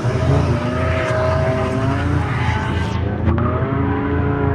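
Rally car engine running hard as the car accelerates away from the start, its pitch climbing, then dropping and climbing again about three seconds in.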